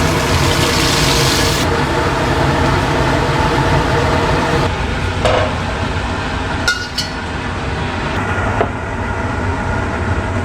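Steady machine-like hum with a hiss on top that thins out part-way through, and a few light clicks near the middle.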